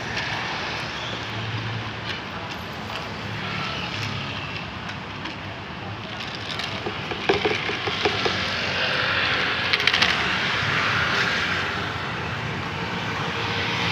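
Steady outdoor street noise: a low rumble and hiss of traffic, with a few clicks about seven seconds in and the hiss growing brighter in the second half.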